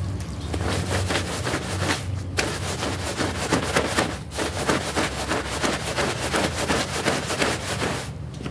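Stiff-bristled push broom scrubbing a wet, soapy carpet: quick rough scratching strokes back and forth, with brief pauses about two and four seconds in.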